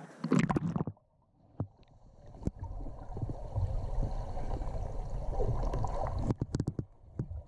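A splash as the camera goes into the water, then the muffled low rumble of the spring heard underwater, with several sharp clicks, most of them near the end.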